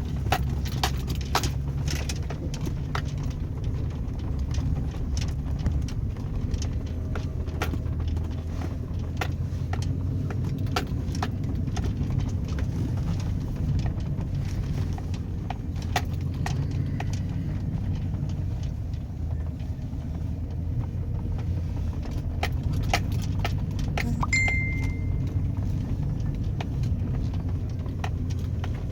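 Chevrolet Avalanche pickup driving over rough snowy ground, its engine making a steady low drone, with frequent clicks and rattles throughout. A short high beep sounds once near the end.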